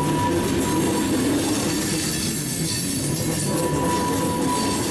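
Freight train cars rolling along the rails in a steady rumble, with a thin steady wheel squeal heard at the start and again for about a second and a half near the end.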